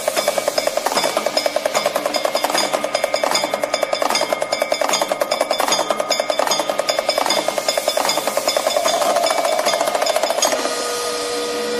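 Rapid, even percussion pulse in a devotional music intro, the strokes coming several times a second, until about ten and a half seconds in sustained held tones take over.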